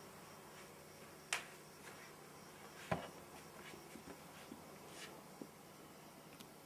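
A few short, sharp clicks and taps over a low steady hiss, the loudest about three seconds in: handling noise from a camcorder being adjusted on its mount.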